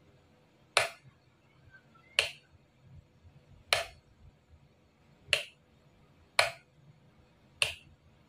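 Wall switch flicked off and on repeatedly, six sharp clicks a little over a second apart. It cuts and restores mains power to the charger of a relay-switched emergency lamp, testing whether the lamp comes on by itself when the power goes.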